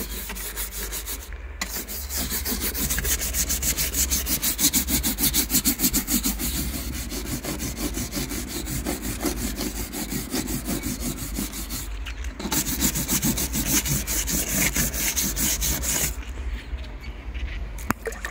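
Plastic hand brush scrubbing the hammered-finish outer wall of a caravan with water, in rapid back-and-forth strokes. The scrubbing stops briefly about two-thirds of the way through, then stops again near the end.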